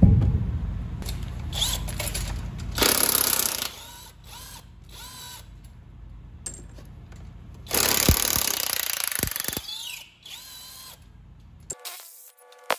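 A power tool running in two bursts, a short one a few seconds in and a longer one of about two seconds a little past the middle, over a steady low hum at the start.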